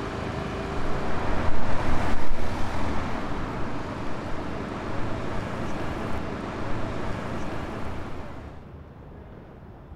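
Road traffic: a vehicle's rushing noise swells to its loudest in the first few seconds, then fades away at about eight and a half seconds in.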